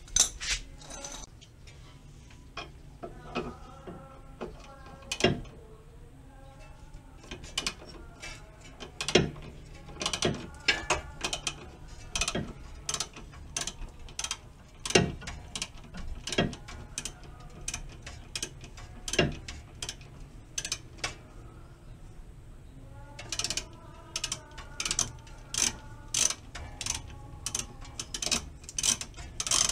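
Hand ratchet and socket clicking as they turn the nut on a car's stabilizer (sway bar) link, in short irregular runs of clicks with pauses between swings, then a quicker, even run of clicks near the end.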